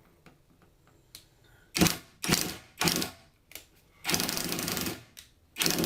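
Cordless impact wrench with a screwdriver bit hammering a screw into wood, in three short trigger pulses followed by two longer runs, each a rapid rattling clatter.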